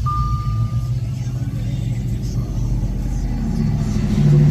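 2012 Audi S5's 4.2 V8 engine running just after a start, growing louder near the end as it revs up. A steady high electronic chime tone sounds for about the first second.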